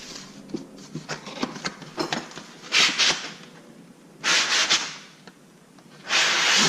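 Handling noise as bandsaw blades are pulled from their packaging: small clicks and knocks, then three scraping, rustling bursts of about half a second each.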